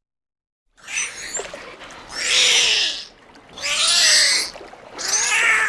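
Dolphin cries: squeaky, gliding whistles and squeals over washing waves, starting about a second in and swelling loud three times.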